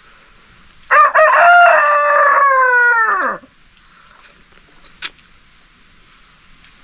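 Rooster crowing once, a loud cock-a-doodle-doo lasting about two and a half seconds whose pitch drops away at the end. A short sharp click follows about five seconds in.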